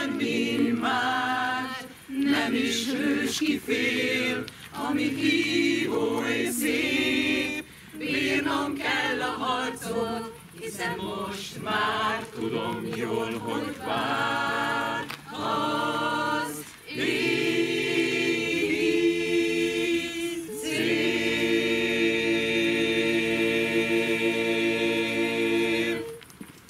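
A mixed group of men and women singing a cappella in chorus, in short phrases at first, then holding longer notes. Near the end they hold one long chord that stops together.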